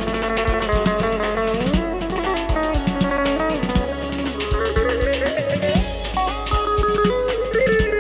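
Background music: an instrumental with guitar and a drum kit keeping a steady beat.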